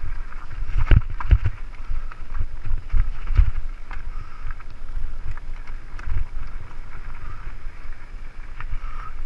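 Mountain bike descending a rocky dirt singletrack: wind noise on the bike-mounted microphone over a low rumble of the tyres on loose stones, broken by repeated sharp knocks and rattles as the bike jolts over rocks.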